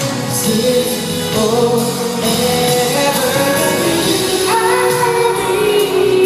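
Male vocal group singing a slow pop ballad live in harmony over backing music, heard through an arena PA.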